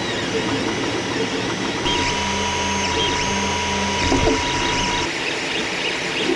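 Creality CR-10S 3D printer running mid-print: its stepper motors whine in steady tones that shift as the head changes moves, over the whir of its cooling fans. A higher steady tone joins about two seconds in and stops about five seconds in.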